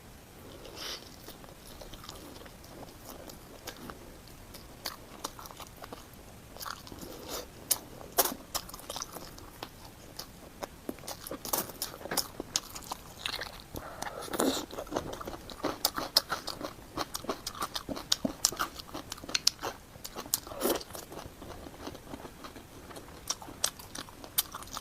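Close-miked chewing and biting of food, with many irregular wet mouth clicks and smacks, busier in the second half.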